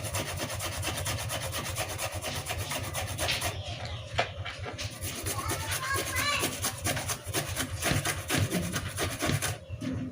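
A fresh ginger-family root being rasped on a cheese grater in quick, repeated scraping strokes.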